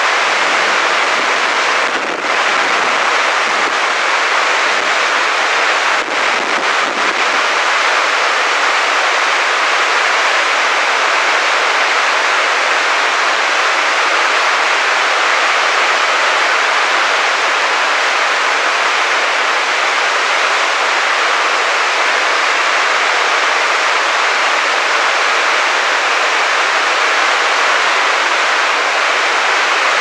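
Waterfall cascading in white water down a rocky slope: a steady, loud rush of falling water.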